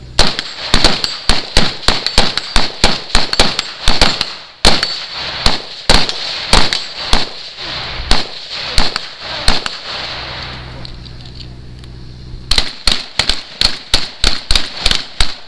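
Rapid semi-automatic fire from a rifle supplied by FNH, about two to three shots a second for about ten seconds. After a pause of about two seconds, a second quick string of about ten shots comes near the end.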